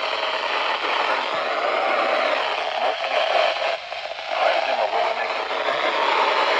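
Radio receiver hiss and static, with faint wavering sound beneath it and a short dip about four seconds in.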